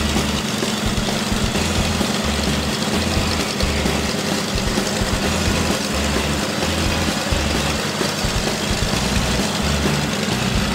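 A Douglas C-47 Skytrain's twin radial piston engines running at idle on the ground, a steady, heavy rumble.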